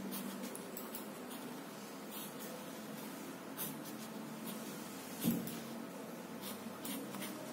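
Pencil strokes scratching on paper as lines are drawn, short strokes at irregular intervals over a steady low hum. A single knock about five seconds in is the loudest sound.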